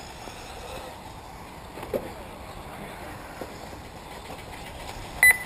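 Race lap-timing system giving one short, loud electronic beep near the end as an RC buggy crosses the timing loop. Underneath is a steady background of the RC buggies running on the dirt track, with a single sharp knock about two seconds in.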